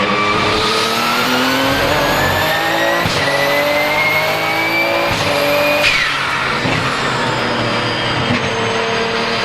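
Porsche 997 GT2 RSR's 3.9-litre twin-turbo flat-six accelerating hard, the revs climbing and breaking at quick sequential upshifts about 3 and 5 seconds in, with a turbo whistle rising steadily in pitch over it. Just before 6 seconds the throttle lifts: the whistle drops away with a short blow-off valve release, and the engine then runs at steadier revs.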